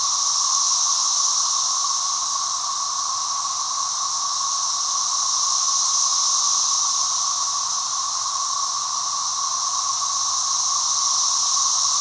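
Dense chorus of Brood XIX periodical cicadas: a loud, unbroken droning hum with a strong high hiss above it, swelling slightly and fading back.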